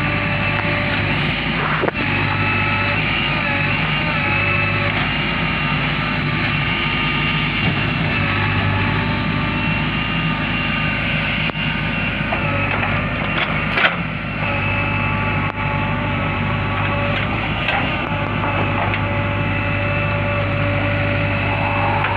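JCB backhoe loader's diesel engine running steadily under load, with a whine over it that bends in pitch now and then, and a sharp knock about two seconds in and another a little past the middle.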